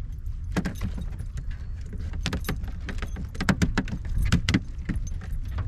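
Irregular clicks, taps and light knocks as a freshly caught speckled trout is handled and measured on a boat's deck, busiest in the middle of the stretch, over a steady low rumble.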